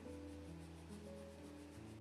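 Soft background music of slow, held notes over a low bass note, with a faint, quick, rhythmic high hiss.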